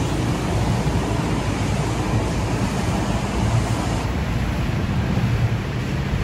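Steady wind rumbling on the microphone while walking outdoors, mixed with city street traffic noise.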